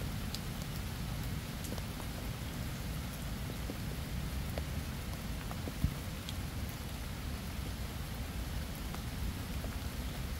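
Steady rain falling, with scattered individual drops ticking and one sharper drop about six seconds in.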